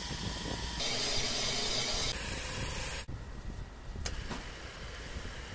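Cylinder boring machine running, its boring bar cutting the cylinder bore of a Tata Ace engine block: a steady hissing machine noise that changes abruptly about a second in, again about two seconds in, and drops about three seconds in.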